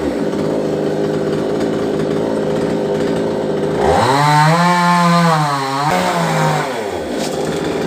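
Two-stroke chainsaw cutting coconut palm wood: the engine pitch drops as it bites into the cut and runs rough under load, then revs up high and free about four seconds in before falling back twice toward a low pitch near the end.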